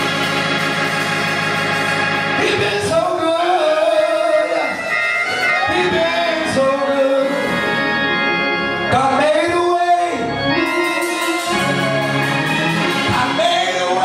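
Live gospel music: a voice sings over held organ-like keyboard chords, with a drum kit playing.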